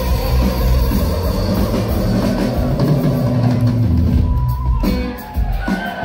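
Live instrumental jam band playing loudly, with drum kit, bass and electric guitar, heard from the audience; the music drops back briefly about five seconds in.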